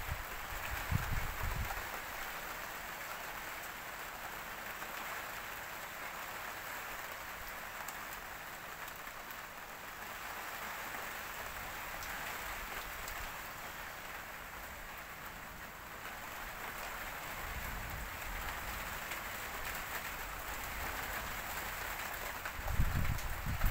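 Steady hiss of rain falling, with gusts of wind buffeting the microphone about a second in and again near the end.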